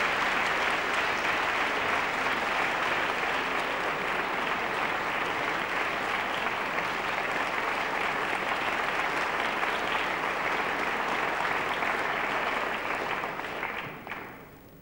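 Concert-hall audience applauding steadily, dying away near the end.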